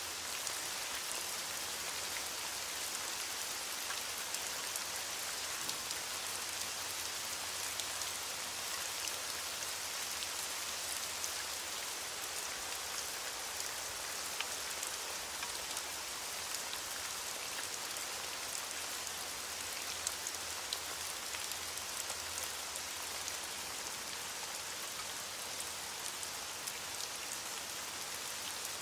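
Steady rain falling: a dense, even hiss with many small drop ticks scattered through it, unchanging throughout.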